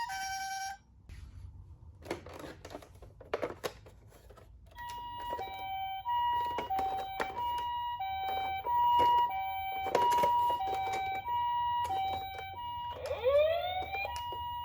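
Toy ambulance minicar's electronic siren sounding the Japanese two-tone 'pee-po' ambulance pattern, alternating a higher and a lower tone. It cuts out a moment in, with a few soft knocks in the gap, resumes about five seconds in, and near the end changes to quick rising sweeps.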